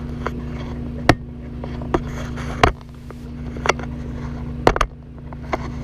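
Microwave oven running with a steady electrical hum, broken by about six sharp pops and cracks from the snow melting inside, two of them close together near the end.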